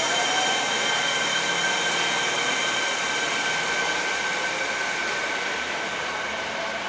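Fukuoka City Subway train running past an underground platform. The dense running noise of the cars carries high steady whines, and the sound slowly eases off.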